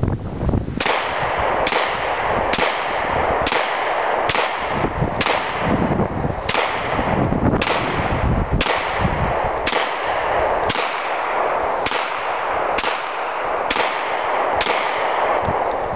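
FN FNX-45 .45 ACP semi-automatic pistol firing a long string of single shots, about one a second, roughly fifteen in all. The string stops shortly before the end.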